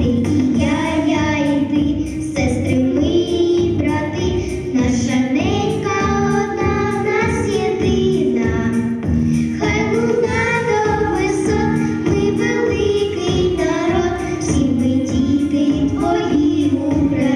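Two young girls singing a song together into handheld microphones, over instrumental backing music.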